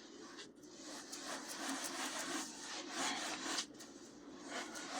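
A sponge rubbing back and forth over a toaster oven's tempered glass door, wiping at baked-on grease under dish spray suds, with a short pause a little before the end.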